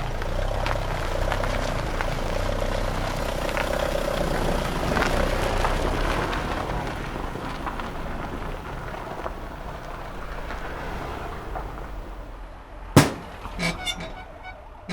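A vehicle running, its noise slowly fading away. About thirteen seconds in there is a single sharp crack, followed by a few bright chiming notes.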